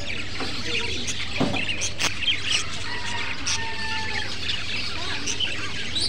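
Many caged budgerigars chirping and chattering together in a dense, continuous twitter, with a held whistle about halfway through. A steady low hum runs underneath.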